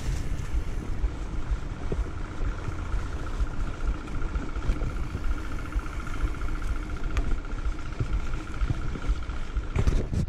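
Off-road motorcycle engine running with a low rumble. A thin steady whine sits above it from about a second in until near the end.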